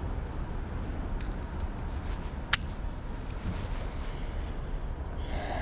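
Steady outdoor background rush with no distinct source, broken by a single sharp click about two and a half seconds in.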